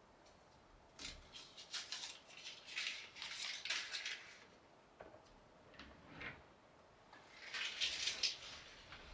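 Light clinking and rustling of small objects being handled, in two bursts of quick rattles: one from about a second in to about four seconds, a second near the end.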